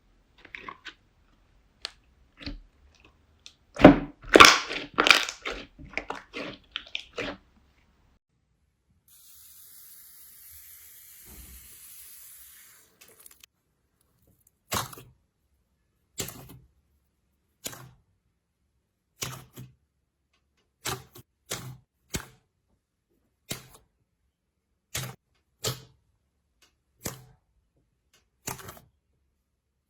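Slime being squeezed and pressed close up, crackling and popping: a quick run of crackles in the first seven seconds, a soft hiss around the middle, then single crackling presses at an even pace, about one every second and a half.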